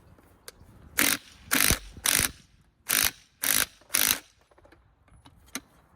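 Ratchet wrench tightening the nut on an alternator pulley: six short bursts of ratchet clicking, in two groups of three strokes.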